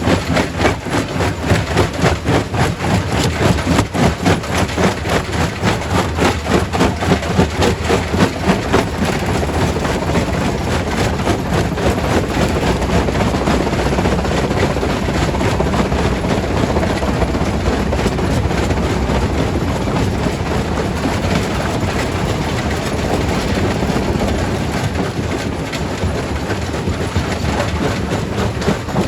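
Quarry primary rock crusher at work, breaking rock. It makes a loud, dense clatter of rapid knocks for about the first nine seconds, then settles into a steadier heavy rumble.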